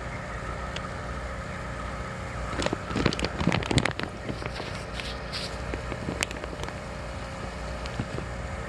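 A steady low hum carrying a faint steady tone. A cluster of rustling and knocking handling noises comes about three to four seconds in, and one more knock about six seconds in.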